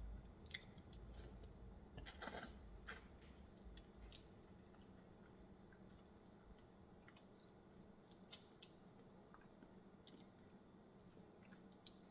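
Quiet eating sounds: faint crackles and clicks of a cooked shrimp's shell being pulled off by hand, with soft chewing. The clearest is a short crackle about two seconds in, with a few thin clicks later on.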